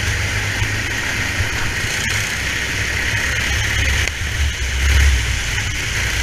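Racing kart engine running at speed under throttle, heard from a camera mounted on the kart, with a steady rumble and rushing noise. It swells briefly about five seconds in.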